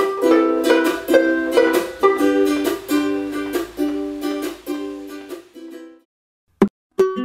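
Firefly banjo ukulele and a wooden ukulele played together in an improvised duet, picked melody notes over strummed chords. The playing slows and dies away about six seconds in, and a click and a short burst of plucked notes come near the end.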